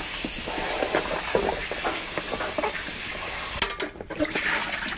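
Kitchen tap running into a stainless steel sink while vegetables are rinsed in a plastic tub. The rush of water cuts off about three and a half seconds in, leaving light knocks and splashes.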